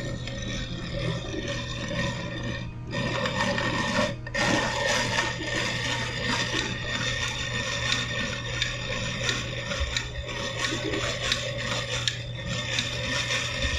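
Hand-cranked grinder crushing roasted cocoa nibs, turned clockwise by hand: a steady gritty grinding and rasping with many small crackles, broken by two short pauses about 3 and 4 seconds in. This is the first grinding of the nibs, which friction will turn into cocoa paste.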